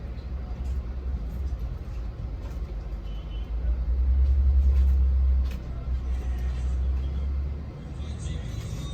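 Low, steady rumble, like traffic heard through a wall, growing louder for a second or two about four seconds in and then settling back.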